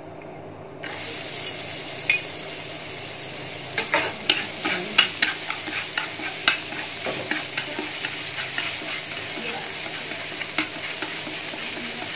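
Minced garlic hitting hot oil in a non-stick frying pan, starting to sizzle suddenly about a second in and then sizzling steadily. Chopsticks stir it, clicking against the pan, most often around the middle.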